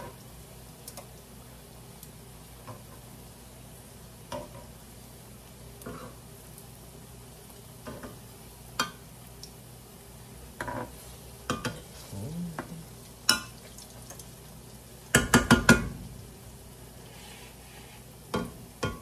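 Metal tongs clicking and scraping against a nonstick frying pan as banana fritters are turned and lifted out, over a faint sizzle of the fritters frying in oil. Scattered single clicks, with a quick run of loud clacks about fifteen seconds in.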